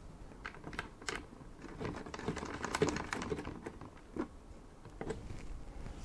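Small metal standoff pillars being screwed by hand into a CPU cooler backplate through a motherboard: faint scattered clicks and taps, with a quick run of small ticks in the middle.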